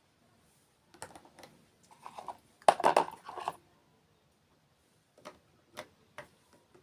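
Irregular sharp clicks and crackles, with a dense cluster about three seconds in and a few single clicks near the end.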